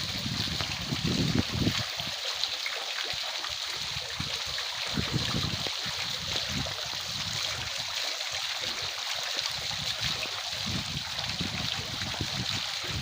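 Water trickling and splashing steadily in a small decorative marble fountain.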